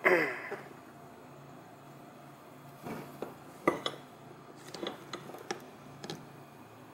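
Small metal parts of a Bendix hydroboost brake booster (coil spring, piston and housing) clinking and tapping against each other and the bench by hand during reassembly: a brief loud sound right at the start, then a handful of sharp clinks from about three to six seconds in.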